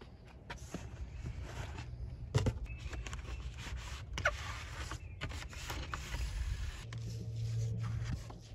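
Paper manuals and cardboard being handled and lifted out of a shipping box: rustling and scraping of paper and cardboard with small clicks and taps. A low steady hum comes in near the end.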